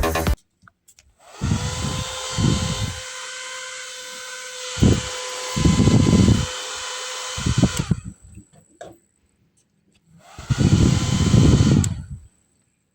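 Small DC motor running with a steady whine, for about six seconds, then stopping and starting again for about two seconds after a short pause. Loud uneven low rumbles come and go under the whine.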